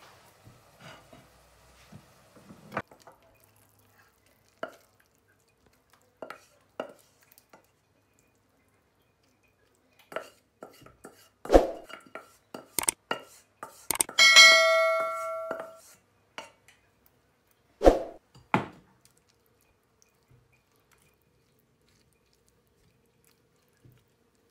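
A wooden spatula scraping and knocking against a metal pan and a ceramic plate as sambal is scooped out and spread, in scattered taps with a few sharp knocks. A little past midway the pan rings out with one clang that dies away over a second or so.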